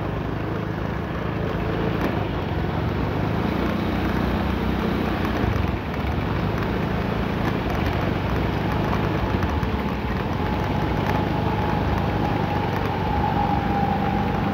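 Steady low engine drone of motor traffic, with a faint thin whine coming in over it about ten seconds in.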